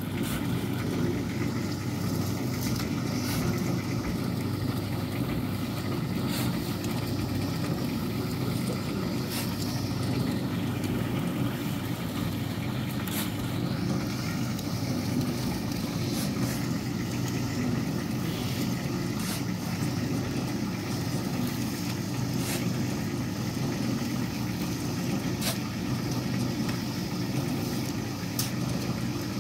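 Steady low rumble of a running vehicle engine, unchanging throughout, with faint sharp clicks every few seconds.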